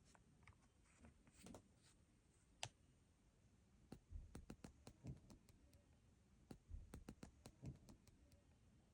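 Near silence with faint, scattered clicks and taps, mostly between about four and eight seconds in, from handling the Nothing Ear (stick) earphones' plastic twist-open charging case.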